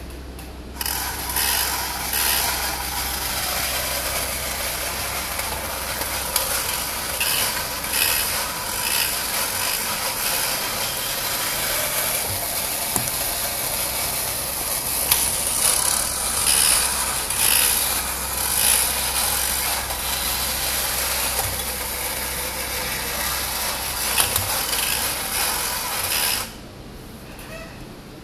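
Battery-operated Rosko Hy-Que the Amazing Monkey toy (Nomura, Japan) running: its electric motor and gearing whir steadily with scattered clicks as it moves through its actions. It starts about a second in and cuts off suddenly near the end.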